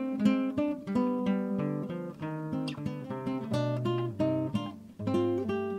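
Acoustic guitar music: plucked and strummed notes.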